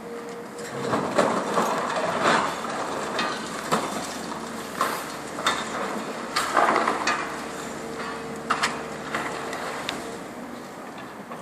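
Demolition excavator with a hydraulic concrete cutter biting into reinforced concrete: irregular loud cracks, crunches and the clatter of falling chunks, over the steady hum of the machine.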